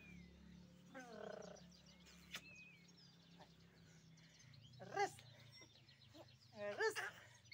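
A baby's short, high-pitched squeals: once faintly about a second in, again around five seconds, and a quick run of them near the end. Birds chirp faintly in the background.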